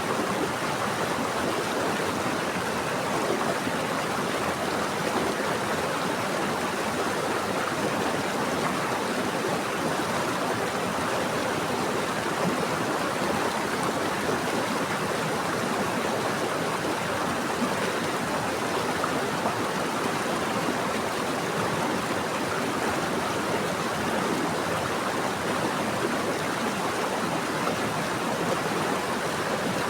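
Running water of a stream flowing steadily, an even rushing sound with no breaks.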